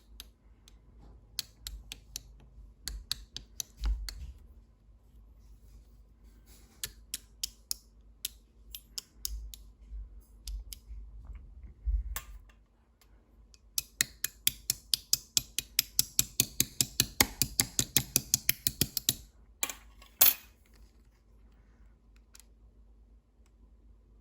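Slime being pressed and poked by hand, giving sharp clicks and pops. Scattered at first, then a quick even run of about four clicks a second, ending in a couple of louder crackles.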